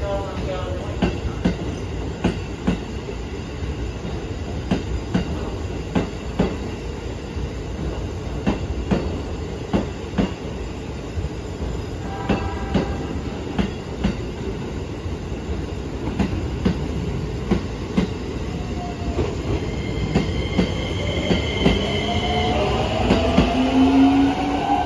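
Keikyu 2100-series limited express train passing slowly: a steady, even clatter of its wheels over the rail joints. In the last few seconds a rising motor whine joins in as the train picks up speed.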